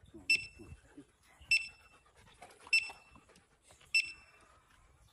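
A handheld metal detector gives four short, high beeps at an even pace, about one every 1.2 seconds, as it is swept over the ground. A dog pants between the beeps.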